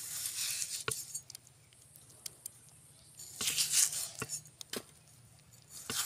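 Raw potato being sliced by hand on a boti, a curved blade fixed upright on a wooden base: three slicing strokes, at the start, about three and a half seconds in and near the end, with a few light clicks between them.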